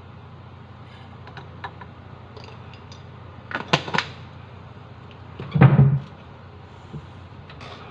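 Small clicks of a spoon and jar as instant coffee granules are spooned into a glass mug, then two sharp clicks as the screw lid goes back on the glass jar. About two seconds later comes the loudest sound, a dull thump with a short rattle.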